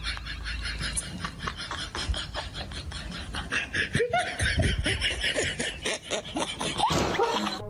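Laughter, a person snickering and chuckling in quick repeated breaths.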